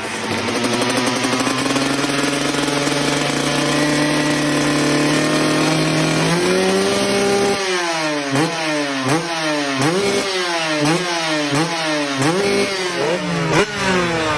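Two-stroke motocross bike engine held at nearly steady revs for about six seconds, then climbing. From about halfway on it revs up and down over and over, about three rises every two seconds.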